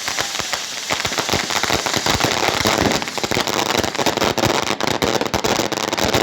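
Firecrackers going off in a rapid, irregular run of sharp cracks, many per second, like a string of crackers.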